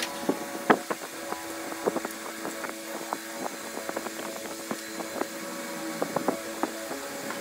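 Codos electric pet clipper with a 3 mm guard running with a steady hum as it shaves through a cat's matted coat, with frequent small irregular clicks.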